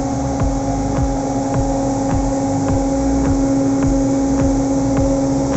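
Machinery in an air compressor enclosure running: a loud, steady electric hum with a constant low tone, a low rumble and faint irregular ticks a few times a second.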